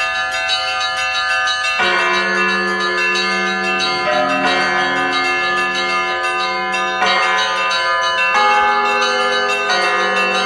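Orthodox monastery bells ringing: large bronze bells of different pitches struck in turn, a new stroke every one to three seconds layered over the long ring of the ones before.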